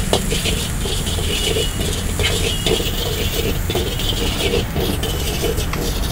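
Metal ladle scraping and clanking against a steel wok in quick repeated strokes as chopped vegetables are stir-fried, over a steady low rumble.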